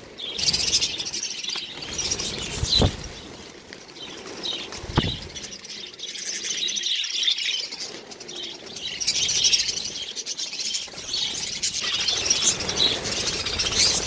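A large flock of budgerigars chirping and chattering continuously, with wings flapping as the birds take flight, startled by a catching net sweeping through the aviary. Two sharp knocks sound about three and five seconds in.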